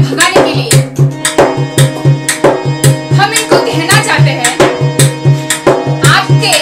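A woman singing to a harmonium's held chords, with a steady rhythm beaten by hand on a large drum.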